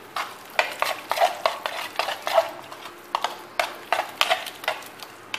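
Besan pakora batter with chopped onion and green chillies being mixed by hand in an enamel bowl: irregular wet stirring strokes, several a second, with light knocks against the bowl.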